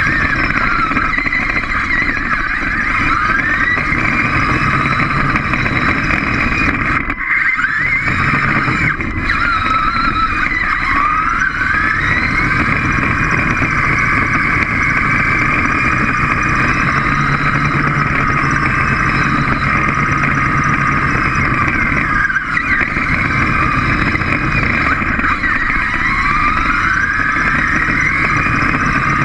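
Small robot's electric drive motors and gearing whining as it drives, the pitch rising and falling as it speeds up and slows. The motors cut out briefly twice.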